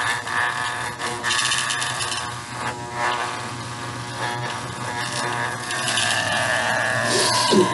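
Electric hair clippers buzzing steadily as they shave a small dog's coat, with a few clicks and rustles of handling.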